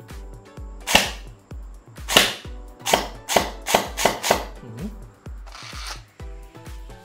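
G&G ARP9 electric gel blaster firing gel balls on semi-auto. It gives sharp, loud pops, single shots at first and then several a few tenths of a second apart around the middle.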